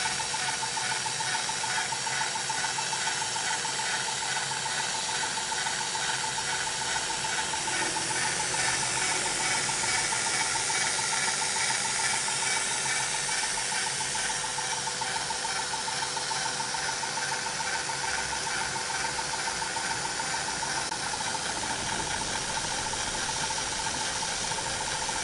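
Corded valve-lapping tool running steadily, spinning a valve back and forth against its seat in a Yamaha Aerox cylinder head to clean off carbon deposits: a continuous, rapid ratcheting chatter.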